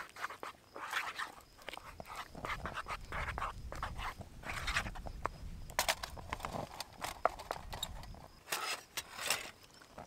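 Thick mashed potato being stirred and beaten with a wooden spatula in a small Trangia Mini pan: an irregular run of wet scraping strokes, with a few sharp clicks of the utensil against the pan.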